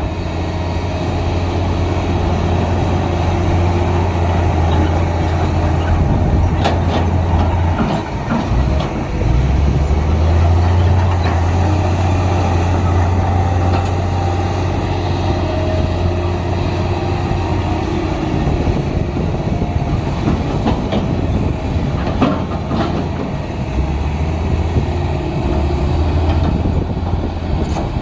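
Komatsu D53P bulldozer's diesel engine running steadily under load while it pushes dirt, its low drone easing off briefly twice, with a few sharp metallic clanks.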